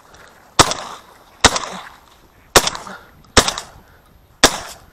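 Five shotgun shots fired in quick succession at ducks flushing from a ditch, spaced about a second apart, each followed by a short rolling echo.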